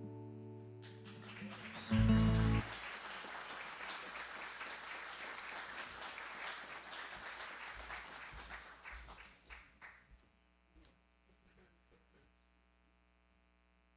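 Church congregation applauding after a sung hymn, the clapping thinning out and dying away about ten seconds in. The last notes of the accompaniment fade at the very start, and a short loud low hum comes about two seconds in.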